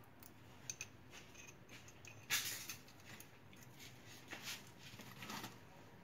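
Light handling noises of a refrigerator compressor's internal pump assembly being turned in the hands: scattered small clicks and scrapes of metal parts, the loudest about two seconds in.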